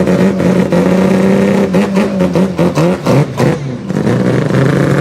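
Rotary car engine running hard at high revs. The pitch holds steady, then rises and falls several times in quick succession about halfway through as the throttle is worked, before settling steady again.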